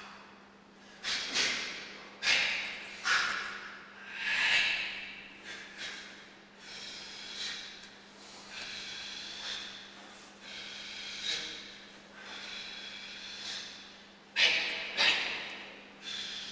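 Short, forceful exhalations from a karateka performing a kata, one with each technique, at irregular intervals. The two loudest come in quick succession near the end.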